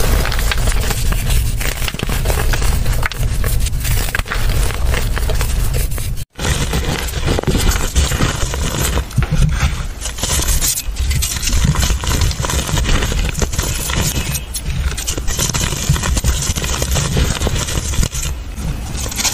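Dry, crumbly dirt crushed by hand and falling into a plastic tray with a dense crunching crackle. After a sudden cut about six seconds in, hands crush mounds of dry dyed powder, crunching and crumbling.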